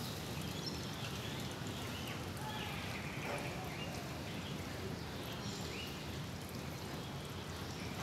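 Steady outdoor background hiss with a few faint, short, high-pitched chirps.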